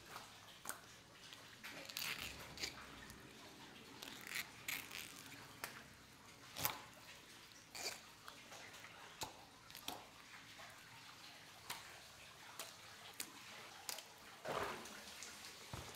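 Knife cutting raw trout on a cutting board: irregular sharp clicks and scrapes of the blade with wet handling of the fish, the loudest click about six and a half seconds in.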